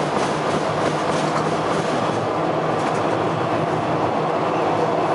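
Toronto H4 subway car running on the track, heard from inside the car: a steady rumble and hiss of wheels on rail over a low hum, with faint clicks over the rail joints in the first half.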